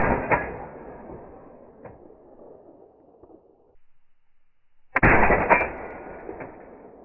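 Two suppressed AR-15 rifle shots, one as the sound begins and one about five seconds in. Each is followed about half a second later by a second sharp crack and a long fading echo.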